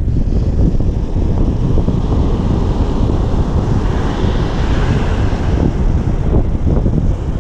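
Wind buffeting the microphone over breaking surf, with the hiss of a wave washing up the beach swelling about four seconds in.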